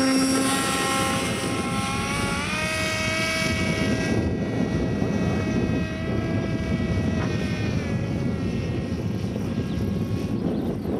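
Small electric motor and pusher propeller of an EPP foam RC model plane whining as it is hand-launched, rising in pitch about two seconds in as it climbs away, then holding steady. Wind noise rumbles underneath.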